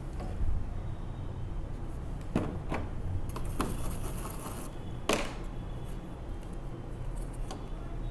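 Small clicks and taps of soldering tools handled against a TV circuit board while a headphone connector is resoldered, over a steady low electrical hum, with a short high hiss about halfway through.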